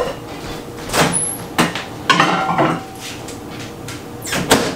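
Kitchen clatter from cookware being handled at a stove: a handful of separate clanks and knocks, one with a brief metallic ring a little past the middle and the loudest knock near the end.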